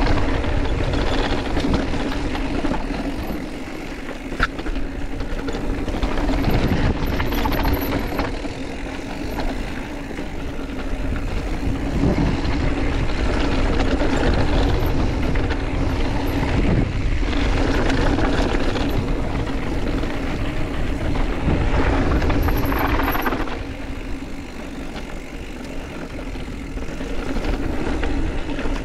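Mountain bike riding down a trail, heard from an onboard camera: wind rushing over the microphone and rolling tyre noise, a continuous rumble that rises and falls with speed.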